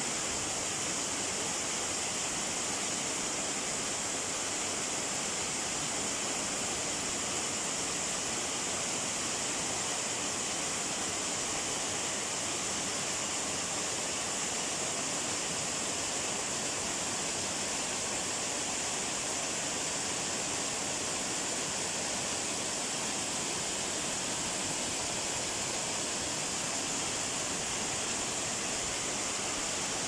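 Small waterfall splashing in several thin streams down a rock face onto the rocks below: a steady, even rush of water.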